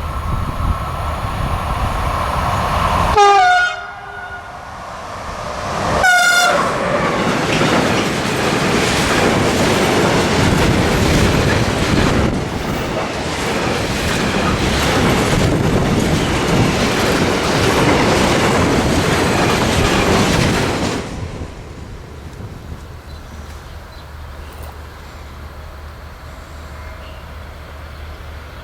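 A train sounds its horn twice, a blast falling in pitch about three seconds in and a shorter one about three seconds later, then passes close by with loud rolling wheel and rail noise and clickety-clack for about fifteen seconds before the noise drops away sharply.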